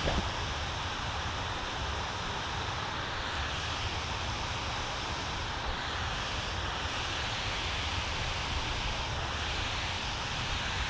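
Steady outdoor background hiss with a low, fluttering wind rumble on the microphone; no distinct events.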